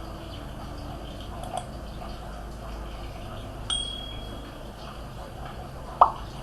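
Steady low background hum, with a short, high, single ding about halfway through and a sharp knock near the end.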